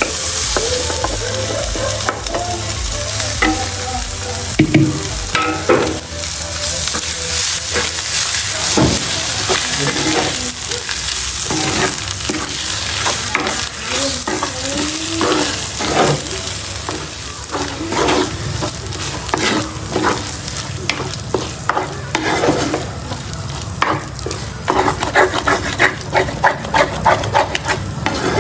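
Food sizzling in a hot pan while being stirred, with frequent clicks and scrapes of the utensil against the pan and a quick run of taps near the end.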